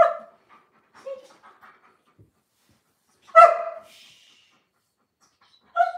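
German shepherd giving three short barks at the owner, asking for a treat: one right at the start, the loudest about three and a half seconds in, and one near the end.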